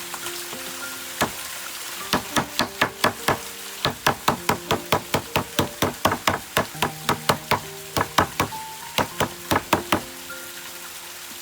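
A rapid run of sharp knocks, about four a second, starting about two seconds in and stopping near the end, over background music.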